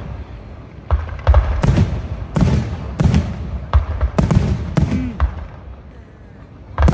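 Aerial firework shells bursting in a rapid series of sharp bangs, each followed by a low rumbling echo. The bangs ease off for a second or so before a strong new one near the end.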